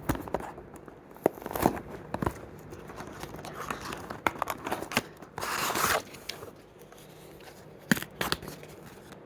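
Hot Wheels blister-card package being torn open by hand: the cardboard backing tears and the plastic blister crinkles and clicks. There is one longer rip a little past halfway.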